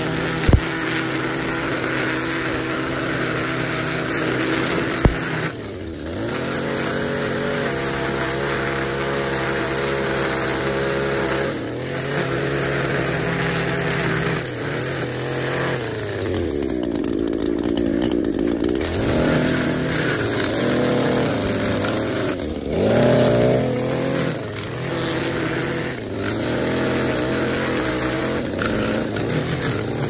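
String trimmer running while cutting grass, its motor pitch dipping and picking up again every few seconds as the throttle is eased and opened. There are two sharp ticks, about half a second in and about five seconds in.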